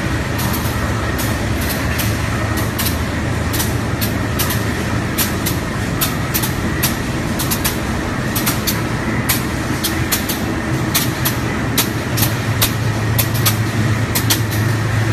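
Steady factory machinery noise: a continuous low hum with frequent, irregular sharp clicks over it.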